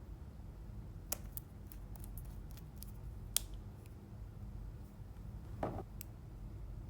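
Slime being worked by hand, giving scattered sharp sticky clicks and pops, with a short denser crackle about five and a half seconds in.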